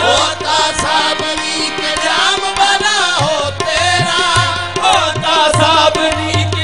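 Qawwali music: harmonium and tabla keeping up a beat, with the singers' voices in long gliding sung lines and no words.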